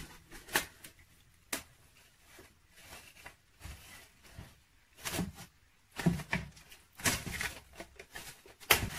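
Plastic cling film pulled from its roll, stretched over a bowl and pressed down around the rim: scattered crinkles and rustles in short bursts, busiest in the second half.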